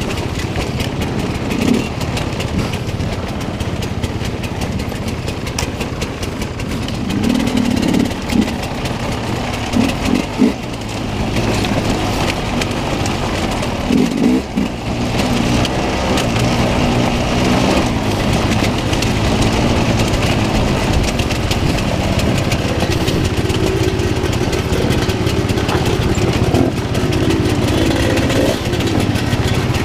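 Enduro dirt bike engine running as the bike rides over a rocky trail, revs rising and falling. A few knocks from the bike hitting rocks come in the first half.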